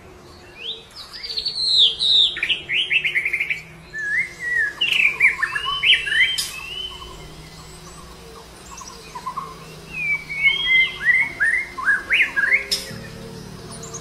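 White-rumped shama singing varied whistled phrases and quick falling trills. The song comes in two runs with a pause of a couple of seconds between them.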